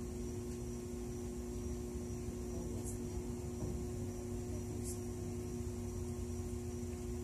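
Steady hum with two constant tones over a low rumble, with two faint high ticks about three and five seconds in.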